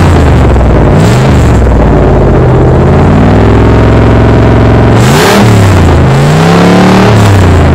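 Cadillac Seville STS's Northstar V8 running with the entire exhaust removed, catalytic converter and both mufflers gone, so nothing muffles it. It is very loud, held at a steady fast idle for a few seconds, then blipped up and back down sharply twice in the last few seconds.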